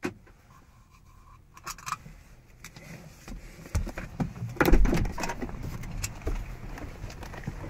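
The driver's door of an Audi S5 coupe is unlatched and swung open from the inside, with scattered clicks and rattles. Heavy thumps and rustling a little past halfway are the driver climbing out.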